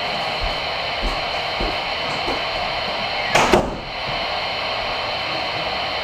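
Voyage CB radio receiver on AM channel 22 (27.225 MHz) hissing with steady open-channel static, with a short burst of noise that sweeps down in pitch about three and a half seconds in.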